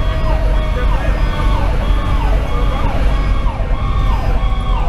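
Fire engine's electronic siren (Sho-Me Powercall), heard from inside the cab, sweeping up and down in pitch about once a second. Under it runs the steady low drone of the truck's Detroit Series 60 diesel and the road.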